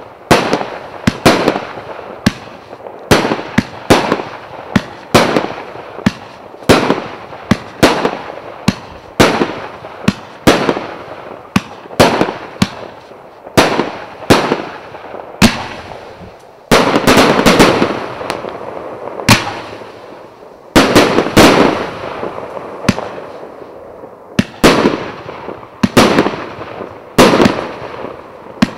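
A 250-shot fan-pattern firework cake of 1 to 1.25 inch shells firing: a steady run of sharp launch and burst reports, about two a second, with a rapid-fire flurry a little past the middle.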